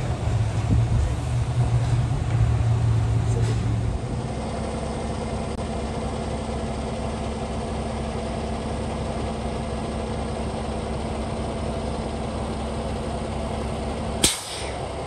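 Semi truck's diesel engine idling steadily, after a louder low rumble in the first four seconds. Near the end comes one brief, sharp burst of noise.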